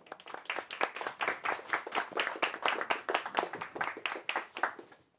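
A small audience applauding: a patter of overlapping hand claps that thins out and fades away near the end.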